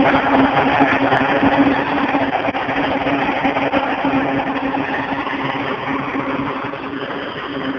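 Grumman C-2 Greyhound's two Allison T56 turboprop engines running with a steady propeller drone and hum, slowly getting quieter as the aircraft taxis away.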